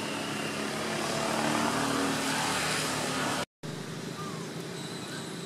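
Steady outdoor background noise with a motor-vehicle hum that swells over the first three seconds. The sound drops out for a moment about three and a half seconds in, then returns as a steadier wash with faint high tones.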